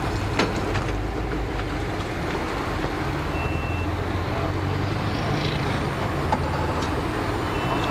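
A motor-vehicle or boat engine idling steadily with a low hum. A short, high, thin tone sounds briefly a little over three seconds in.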